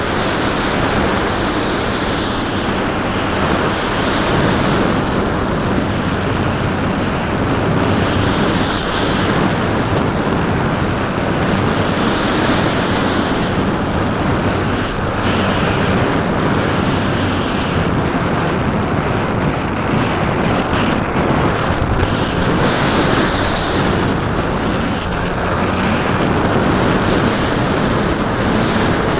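Steady wind rushing over a camera mounted on a Bixler 2 foam RC plane in flight, with the steady hum of its Turnigy brushless motor and 8x5 propeller underneath.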